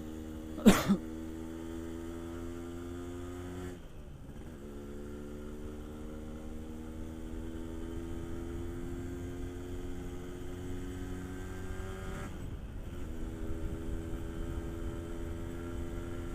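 Yamaha RX King's 135cc two-stroke single-cylinder engine running steadily under way, its pitch climbing slowly and dipping briefly twice as the throttle eases and picks up again. A single sharp knock, the loudest sound, comes just under a second in.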